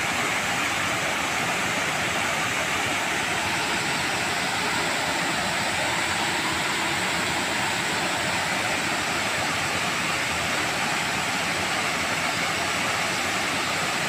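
Waterfall pouring into its plunge pool: a steady, unbroken rush of falling water.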